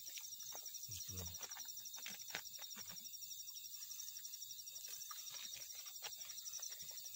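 Night insects chirring steadily in a fast, even pulse, with scattered faint clicks and a brief low voice about a second in.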